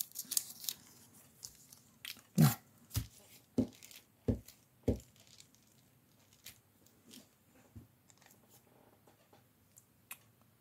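Paper handled on a wooden tabletop: light rustling, then five soft thumps about half a second apart, and a few faint clicks near the end.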